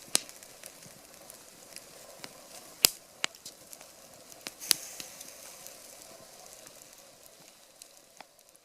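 Wood campfire crackling, with a steady faint hiss and several sharp, loud pops scattered through it, dying down near the end.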